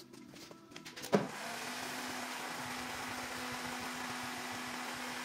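Handheld electric heat gun switched on about a second in with a sharp click, then running steadily with an even blowing hiss and a low motor hum, its hot air aimed at the car door's inner membrane.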